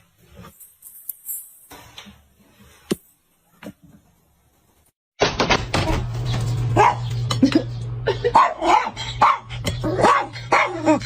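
Dog barking and whimpering, starting suddenly about five seconds in as many short calls over a steady low hum. Before that there are only a few faint clicks and knocks.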